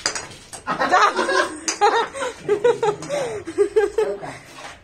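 Someone laughing in a run of short, high-pitched bursts that starts under a second in and lasts about four seconds.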